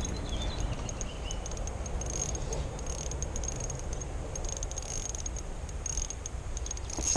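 Fishing reel clicking in short rapid bursts as a hooked carp is played on light line, over a low steady rumble.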